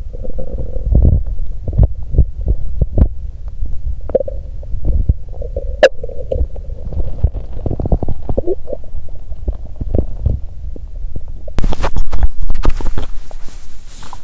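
Stomach gurgling and rumbling picked up close by a clip-on microphone on the belly during a menstrual stomachache: low churning with many short pops and a few brief squeaky tones. Near the end, loud rustling and scraping as the microphone is moved over clothing onto bare skin.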